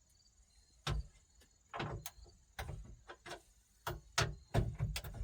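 Irregular clicks and knocks of hands and tools working at the radio and dash panel of a squarebody pickup, with a few heavier knocks about a second in and near the end.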